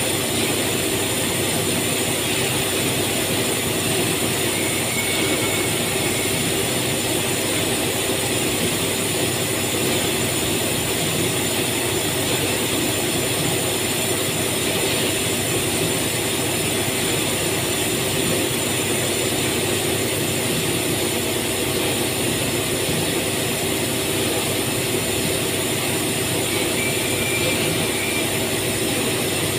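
Steady drone of factory machinery: an even noise layered with several constant hums.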